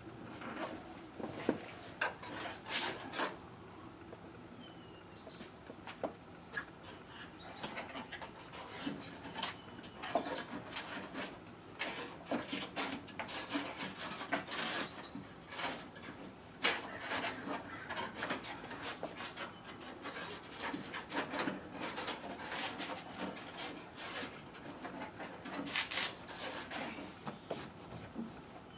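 Irregular rubbing and scraping with scattered light clicks and knocks, as a length of cord or wire is worked by hand through a hole in the truck cab's panels.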